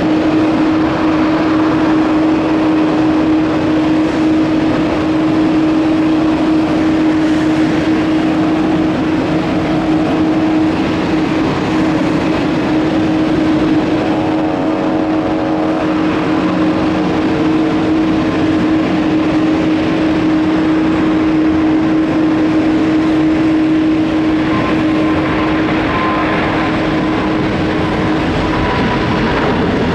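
Twin jet engines of a Boeing 777-200 at take-off power, a loud steady rush with a constant whine.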